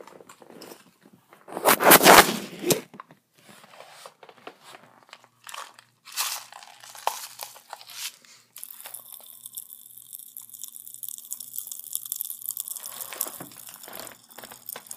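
Close-up chewing and crunching of Pop Rocks bubblegum, with a loud burst of crunching about two seconds in and scattered short crackles after it.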